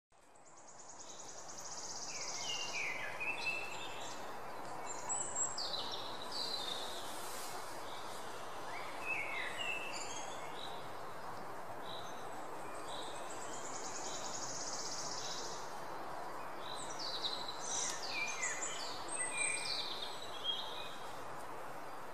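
Birds chirping and trilling in scattered bursts over a steady rushing background noise, with a high steady buzz that comes and goes twice; the sound fades in over the first couple of seconds.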